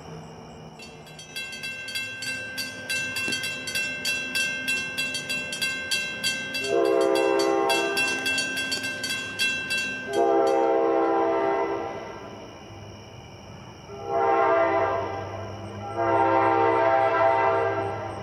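Grade-crossing warning bell ringing rapidly while the gates lower, stopping about ten seconds in. Over it an approaching New Jersey Transit train's horn sounds the grade-crossing signal: long, long, short, long.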